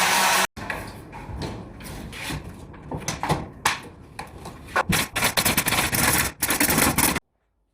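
Irregular scraping and rubbing with scattered sharp knocks and clicks, coming thicker near the end, then cut off suddenly.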